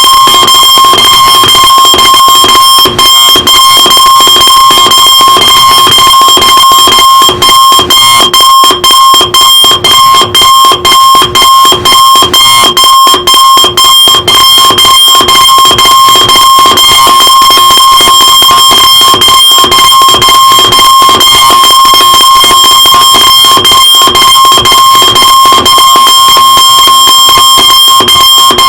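Electronic alarm clock buzzer sounding a loud, steady high-pitched tone. Between about 7 and 14 seconds in it breaks off very briefly about twice a second.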